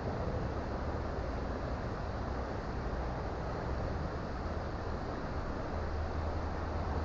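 Creek water flowing steadily, with a low rumble underneath that grows stronger near the end.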